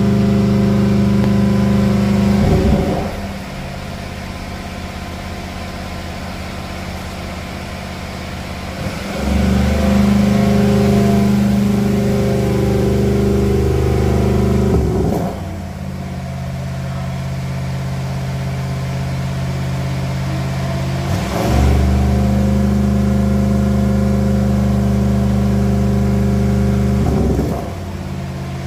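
The Audi RS7's 4.0-litre twin-turbo V8 running steadily at idle. Its note steps between a louder, deeper level and a quieter one about every six seconds.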